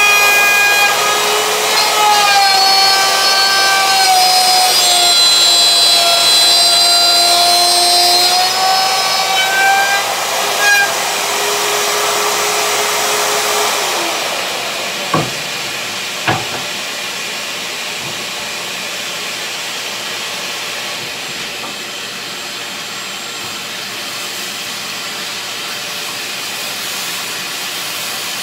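Router in a router table cutting a pine board, its motor whine dipping in pitch under load and recovering, then stopping about halfway through. Two sharp knocks follow, then the steady rushing hiss of a shop vacuum.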